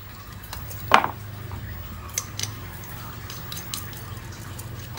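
Small metal carburettor parts and tools clicking and clinking as they are handled, with one sharper metallic clink that rings briefly about a second in and a few lighter ticks after it, over a steady low hum.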